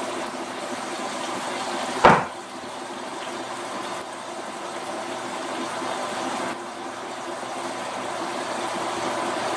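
Chicken tenders sizzling steadily as they brown in a frying pan, with one short clatter about two seconds in.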